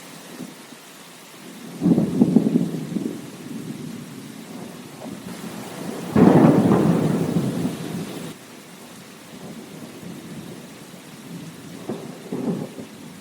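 Steady rain with thunder rumbling over it three times: a roll about two seconds in, a louder one that breaks in suddenly about six seconds in and rumbles for a couple of seconds, and a smaller one near the end.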